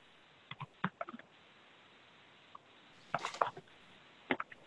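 Scattered clicking at a computer mouse and keyboard: a few single clicks in the first second, a short quick run of clicks a little after three seconds in, and one more click near the end.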